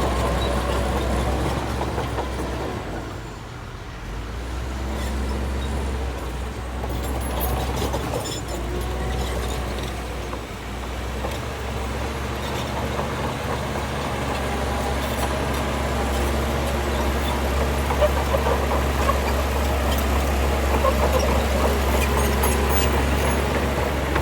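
Diesel engine of a Shantui bulldozer running steadily under load, with scattered metallic clicks and squeaks. The engine dips briefly about three seconds in, then comes back.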